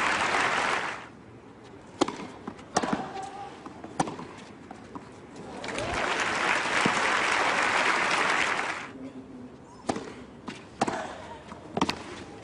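Tennis crowd applauding in two bursts, one fading out about a second in and another from about five and a half to nine seconds. Between them, sharp single knocks of a tennis ball being bounced and struck.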